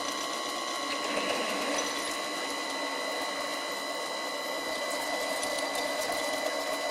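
Vintage bench wood lathe running at a steady speed, a motor-and-belt whine with a constant hum, while a drill bit in the tailstock drill chuck bores a hole in the spinning workpiece.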